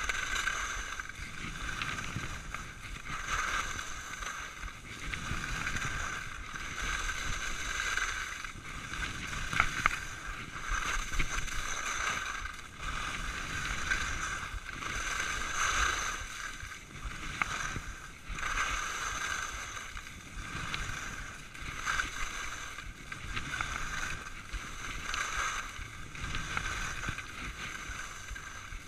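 Skis scraping and carving over groomed snow, the hiss swelling and fading with each turn every second or two, over a low rumble, with a couple of sharp clicks about ten seconds in.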